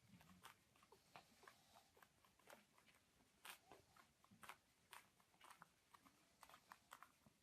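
Faint chewing: irregular crunches and clicks, about two to three a second.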